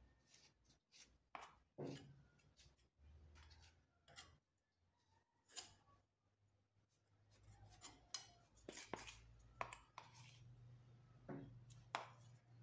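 Faint, scattered scrapes and light taps of a metal plaster spatula working wet dental plaster against a stainless steel bench, smoothing the plaster around the base of models mounted in an articulator.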